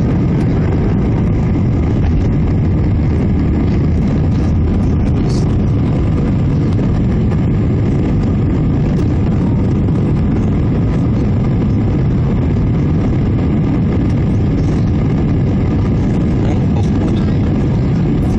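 Steady jet engine and airflow noise inside the cabin of an Airbus A319 climbing after takeoff, deep and unchanging.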